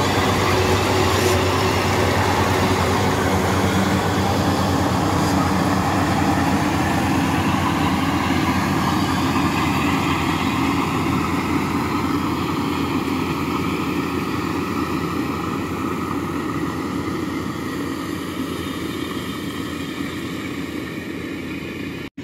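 Tracked rice combine harvester running while cutting and threshing: a steady engine and machinery drone that slowly fades as the machine works away from the listener.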